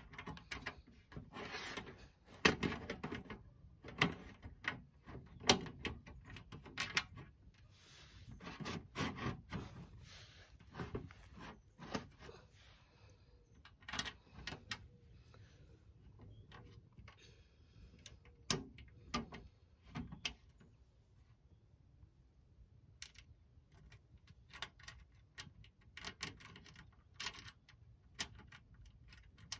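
Corrugated metal Vegega raised-bed panels being handled and bolted together by hand: irregular metallic clicks, knocks and rattles, busier in the first half.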